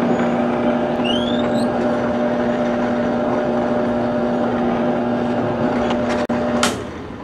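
Benchtop drill press motor running steadily while an eighth-inch bit drills mounting holes in a block of wood. Near the end it is switched off with a click and winds down.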